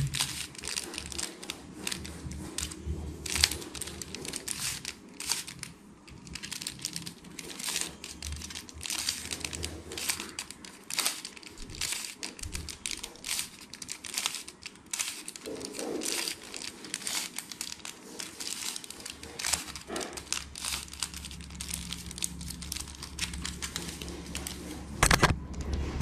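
Plastic 3x3 Rubik's cube being turned by hand: its layers click and clack in quick, irregular runs of turns.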